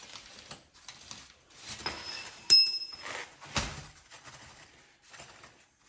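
Metal objects being handled, with scattered clinks and knocks. About two and a half seconds in comes one sharp metallic clink that rings briefly, and about a second later a heavier thump.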